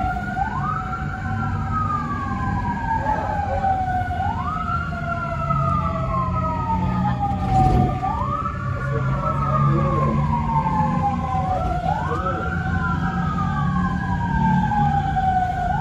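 Fire brigade sirens wailing, each cycle rising quickly and falling slowly about every four seconds. A second siren overlaps, and a vehicle engine rumbles low underneath.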